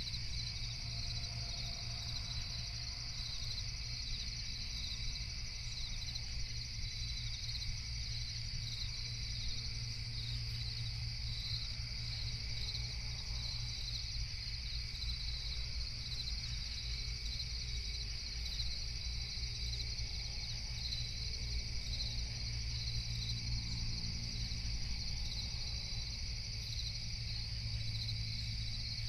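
Steady night chorus of crickets, a continuous high chirring, over a low steady rumble.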